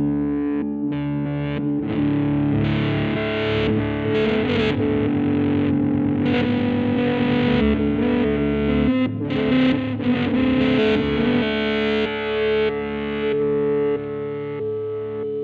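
Electric guitar, a Jazzmaster converted into a 'Jazzblaster', played through a Peavey Vypyr VIP 2 amp with distortion and effects: sustained chords with a short break about nine seconds in, then notes left ringing that fade near the end.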